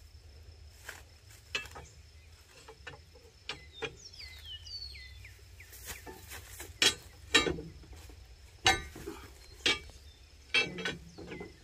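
Scattered sharp metallic clinks and knocks, about nine, from a steel pry bar being levered against the front wheel of a long-parked car to turn it past a tight spot. A bird gives a few quick falling chirps about four to five seconds in.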